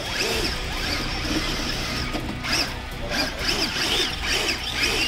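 Electric motor and drivetrain of a radio-controlled crawler truck whining in short bursts, the pitch rising and falling with each blip of the throttle as it works over the trail.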